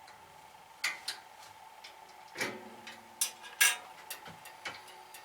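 Metal parts of a band saw being handled during a blade change: a string of sharp clicks and clinks, one about two and a half seconds in with a short metallic ring, the loudest pair a little past three seconds.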